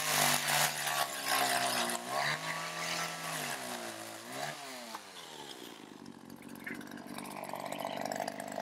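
Chainsaw running loud while cutting wood, its pitch dipping and recovering a few times.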